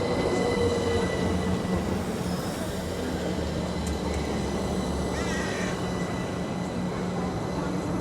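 Train running at the station: a steady rumble and engine hum with a thin high whine, and a slowly falling tone near the start. A short wavering high-pitched squeal or call sounds about five seconds in.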